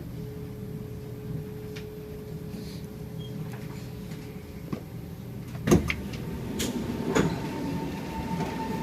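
Steady low hum inside a Kawasaki C751B metro car, with a few knocks and a loud thump a little past halfway through, then another thump about a second and a half later.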